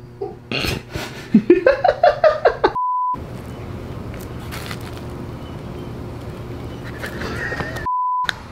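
Two short, steady high-pitched censor bleeps about five seconds apart. Each one comes right after a loud, excited burst of a man's voice, covering a swear word.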